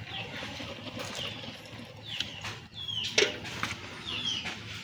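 Small birds chirping over and over, short quick chirps that fall in pitch, a few a second, over the faint splash of milk poured from a metal pail through a strainer into an aluminium pot.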